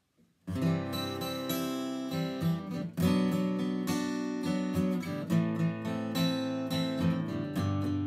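Acoustic guitar starting about half a second in and strumming the song's instrumental intro, with no singing.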